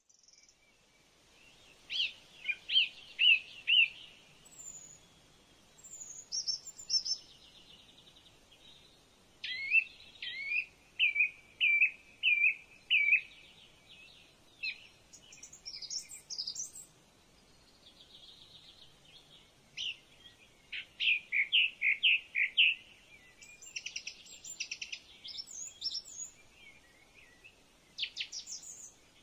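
Birds calling: runs of four or five quick, clear chirps repeated every few seconds, with quieter gaps and some faster, higher trills in between.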